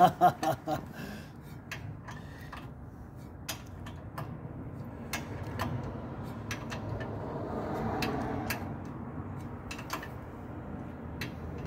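Irregular light metallic clicks and clinks of a hand wrench being fitted onto and turned on brake caliper bolts, a few at a time, with gaps between them.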